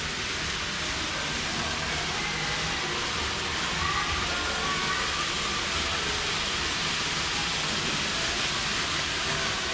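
N gauge model trains running on the layout's track: a steady, even rolling hiss from wheels on rail.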